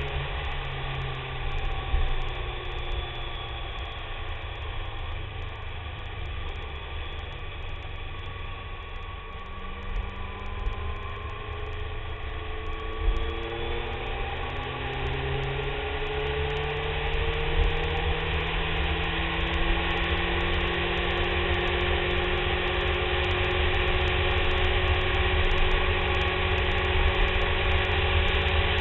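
BMW K1300S inline-four engine running under way, its pitch rising twice as the bike accelerates, over a constant low rumble of wind and road noise that grows louder toward the end.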